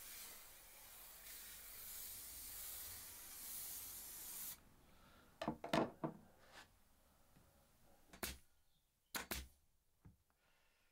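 Aerosol spray can hissing in one long spray of about four and a half seconds, which stops abruptly, applying adhesive to upholstery wadding. A handful of short sharp clicks follows, the later ones as an upholstery staple gun is set to the seat frame.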